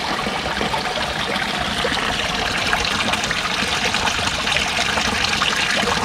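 A small stream of water spilling over mossy rocks and splashing into a shallow pool, a steady close-up splashing of many small drops.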